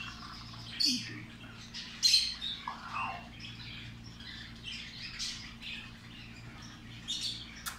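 Parrot squawking in short shrill calls, a few seconds apart, the loudest about two seconds in.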